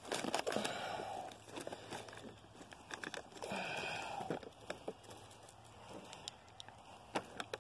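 A thin plastic bottled-water wrapper crinkling and rustling as it is handled, in short irregular bouts with scattered clicks.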